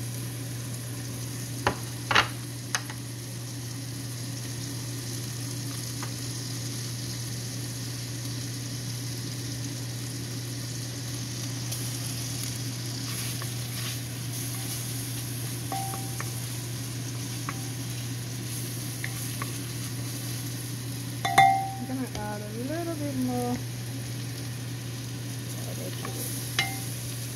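Garlic sizzling as it fries in melted butter in a pan while it is stirred, over a steady low hum. A few sharp knocks of the utensil on the pan, the loudest about three-quarters of the way through, followed by a brief squeak.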